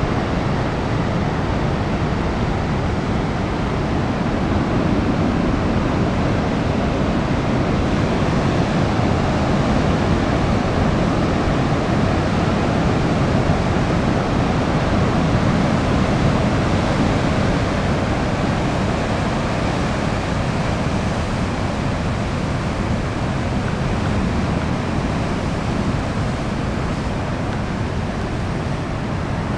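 Ocean surf at a king tide: waves breaking and foam washing over the beach and rocks in a steady rush of noise, a little louder in the middle.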